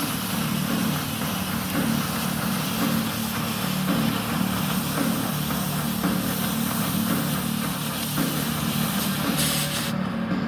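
Welding arc crackling and hissing over the steady hum of a running engine. The arc cuts off suddenly near the end, and the engine keeps running.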